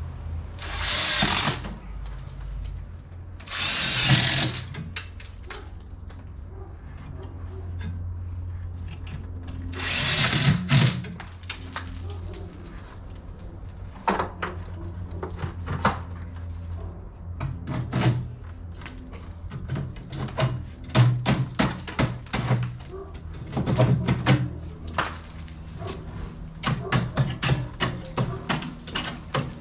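Cordless drill driving screws into the ceiling patch in a few short bursts, each about a second long, fastening mesh over wood backings. Between and after the bursts come many short clicks and knocks of handling the mesh and tools.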